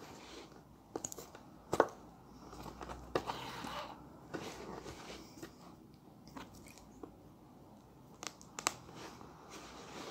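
Hand stitching of a boot with a stitching awl: scattered sharp clicks and crunches as the awl's needle is pushed through the sole and leather and the thread is pulled tight, with soft rustling in between. The loudest click comes a little under two seconds in.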